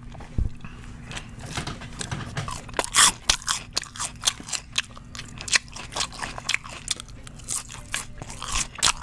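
A person chewing crunchy food close to the microphone, ASMR-style: many crisp crunches and bites in quick, irregular succession.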